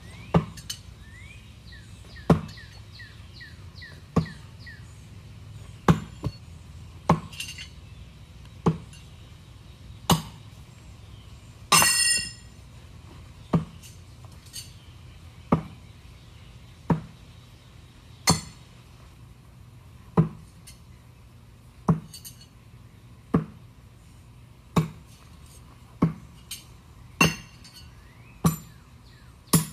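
Thrown knives striking a wooden target one after another, about one every one and a half seconds, each a sharp thunk or clink. About twelve seconds in, one strike rings on like struck steel, blade hitting metal. Birds chirp briefly in the first few seconds.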